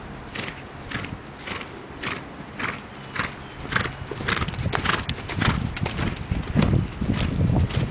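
Hanoverian horse's hooves beating on a dirt arena in a steady rhythm of about two strides a second, growing louder near the end as the horse passes close by.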